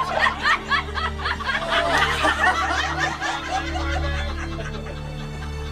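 Several people laughing and chuckling together in short, broken bursts over soft background music; the laughter dies away near the end, leaving the music.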